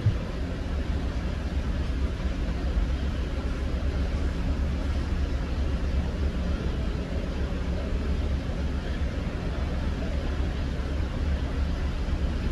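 Ford E150 van's engine running with a steady low rumble, heard from inside the cab.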